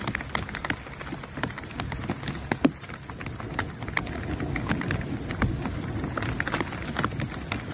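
Rain falling: scattered, irregular drop taps over a steady hiss.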